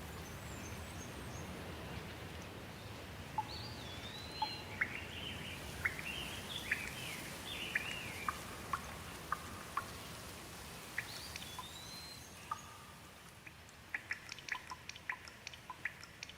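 Steady rain falling on leaves, with a bird calling through it in short whistled notes that rise and fall, twice in a few seconds. Near the end the rain thins and separate drips tap out quickly.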